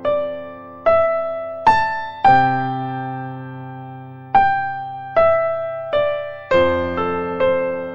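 Background music: a slow, gentle piano melody of single struck notes, each left to ring and fade, about one a second with a short pause midway.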